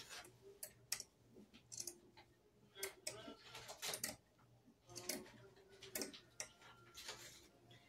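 Scissors snipping through burlap fabric in a run of quiet, irregular cuts.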